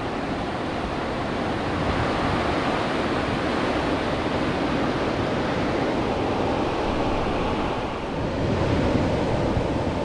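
Ocean surf from a large storm swell breaking and washing up the sand: a steady rushing wash that dips briefly and swells again near the end.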